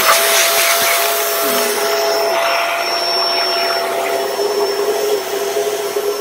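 BISSELL Pet Hair Eraser Turbo Rewind upright vacuum running steadily with an attachment fitted: a loud motor and airflow rush with a steady hum and a thin high-pitched whine.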